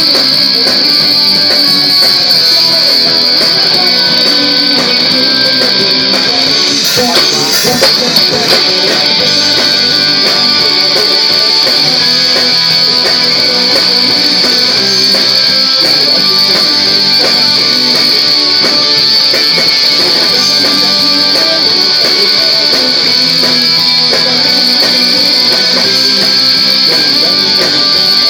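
A live band playing a song, with strummed guitar to the fore, loud and steady. A constant high-pitched tone sits underneath the music.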